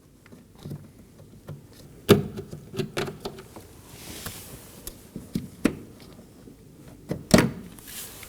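Plastic push clips on a car's inner door being twisted and pulled out: scattered sharp plastic clicks and knocks, the loudest about two seconds in and again near the end, with a brief soft hiss between.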